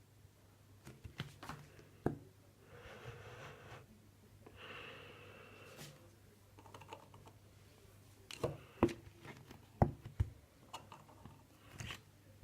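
Small objects being handled on a hard surface: scattered clicks and knocks, sharpest and loudest in a cluster after eight seconds in. There are two short stretches of rustling noise around three and five seconds in. A faint steady low hum runs underneath.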